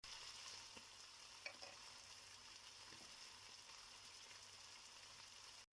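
Food frying in hot oil in a pan: a faint, steady sizzle that cuts in and out abruptly, with a small click about one and a half seconds in.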